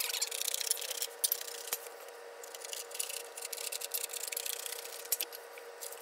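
Hand tin snips cutting through thin duct sheet metal: a dense, irregular run of crisp snipping crackles as the blades work along the sheet, with the thin sheet flexing and rattling.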